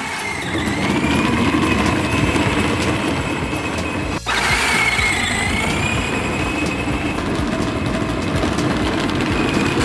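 Battery-powered ride-on toy car, a Polaris Slingshot replica, driving over paving stones, its electric motor running steadily with a wavering whine, with a brief break about four seconds in. Music plays alongside.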